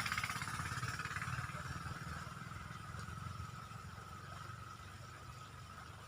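A passing vehicle's engine running with a low, fast-pulsing rumble, fading steadily as it moves away.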